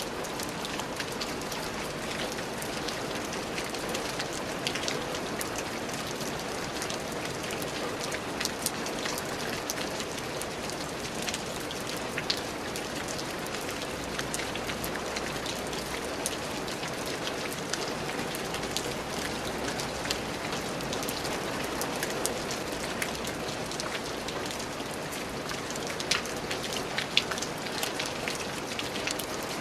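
Steady rain falling on a surface, an even hiss with many individual drops ticking sharply, a few louder drops near the end.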